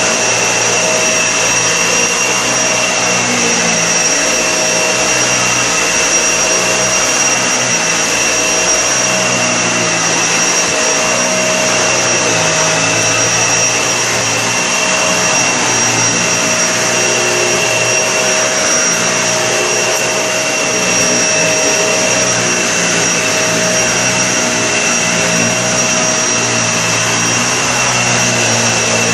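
Upright vacuum cleaner running steadily: a loud, continuous rush of air with a steady high-pitched motor whine on top and a fluttering low rumble beneath.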